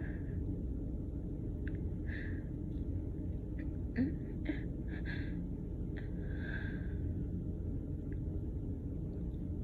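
A woman's short breathy inhales and sniffs, repeated about every second or two, as a nose tickle builds toward a sneeze that does not come. A steady low hum runs underneath.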